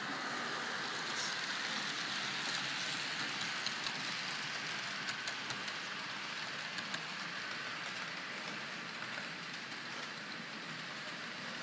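Model electric train running on the layout's track: a steady rolling hiss with scattered light clicks, easing off in the second half.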